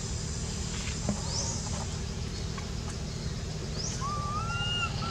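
A baby long-tailed macaque giving a thin whining cry about four seconds in, rising then levelling over about a second, over forest insects making repeated short rising chirps and a steady low rumble.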